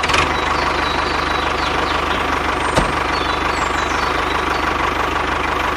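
The small motor of a homemade miniature model tractor runs steadily with a fast, even buzz. There is a single sharp click a little under halfway through.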